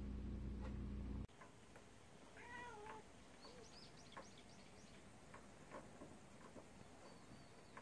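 A steady low hum cuts off abruptly about a second in. Then a house cat meows once, a short call that rises and falls in pitch, followed by a run of faint high chirps and scattered light clicks.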